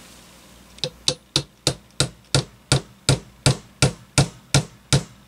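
Light, sharp tapping at an even pace of about three taps a second, starting about a second in: a screwdriver gently tapping the small cross pin out of an electric fan motor's steel shaft so the bearing can slide off.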